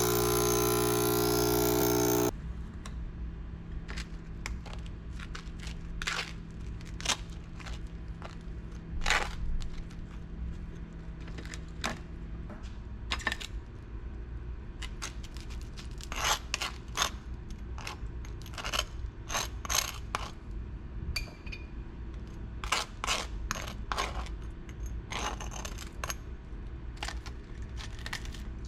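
Background music cuts off about two seconds in. It gives way to a string of light clicks, clinks and scrapes from small hard objects being handled, over a low steady hum.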